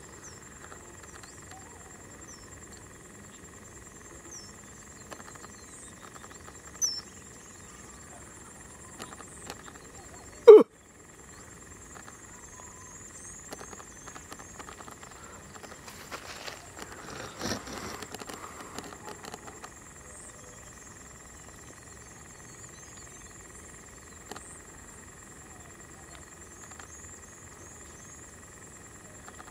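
Steady chorus of insects and frogs calling, with several unbroken high tones. A sudden, very loud short pop about ten seconds in, and a few seconds of rustling and crackling a little past the middle.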